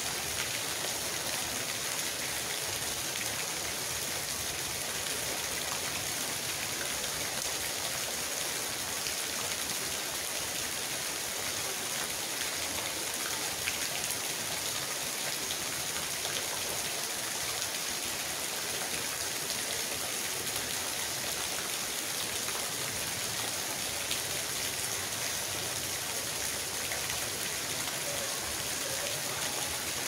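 Steady rain falling on puddles and wet gravel, with a small stream of runoff water splashing continuously into a puddle.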